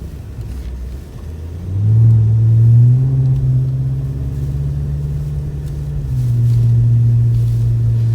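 BMW F90 M5's twin-turbo V8 under throttle: the engine note comes in loudly about two seconds in, climbs a little and holds, then drops back slightly about six seconds in and carries on steadily, over a low rumble.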